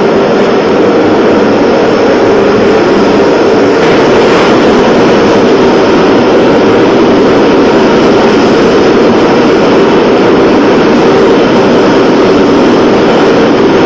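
Steady, loud roar of a gas burner heating the lead-melting pot for pouring the keel, running without a break.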